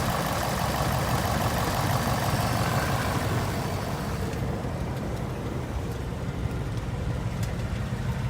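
A 2018 Ford Mustang GT's 5.0 Coyote V8 with an MT82 manual gearbox, idling steadily. It is being listened to for the MT82 'typewriter' rattle; the owner hears a little bit of knocking but not a typewriter sound. The higher clattery part of the sound fades about four seconds in, leaving the low engine note with a few faint ticks.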